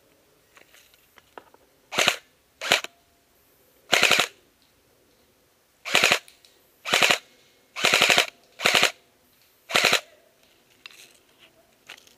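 Airsoft gun firing about eight short full-auto bursts, each a fraction of a second of rapid shots, spaced roughly a second apart between about two and ten seconds in.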